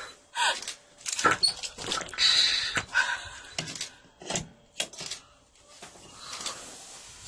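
A series of short, irregular animal growls and cries from lions pinning down a live zebra.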